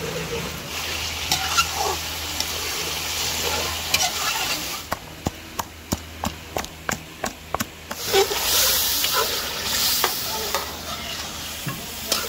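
Chicken and onions sizzling as they fry in an aluminium karahi, with a metal spatula scraping the pan as it is stirred. About five seconds in, a wooden pestle knocks in a clay mortar, about ten sharp strokes at about three a second, before the sizzling and stirring carry on.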